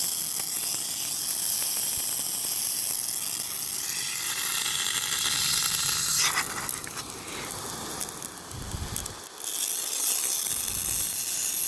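Pop-up lawn sprinkler heads spraying water close by, a steady hiss. It shifts and dips briefly about two thirds of the way through.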